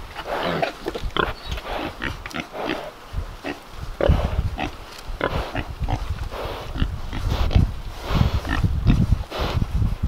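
A sow and two-month-old pigs grunting close by, many short irregular grunts one after another.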